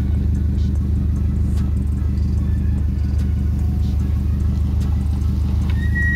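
Subaru WRX STI's turbocharged flat-four idling steadily close by, warming up after a cold start from a month of sitting. A short high-pitched tone sounds near the end.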